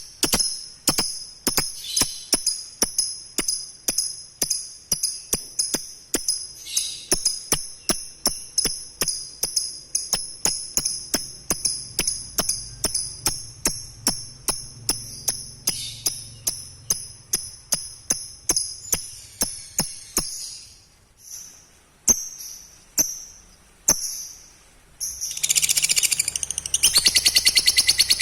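Lovebird calling with sharp, high chirps repeated evenly two to three times a second. About twenty seconds in it slows to a few spaced calls, then near the end breaks into a fast continuous chatter, the long 'ngekek' song that lovebird keepers listen for.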